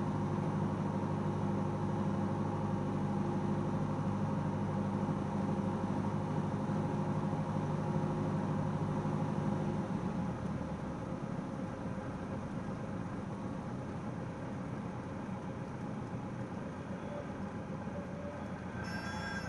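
Cessna 172S's four-cylinder Lycoming engine and propeller droning steadily, heard from inside the cockpit on final approach. About halfway through, the deep engine drone drops away as the power comes back to idle over the runway, leaving a quieter engine and rolling noise.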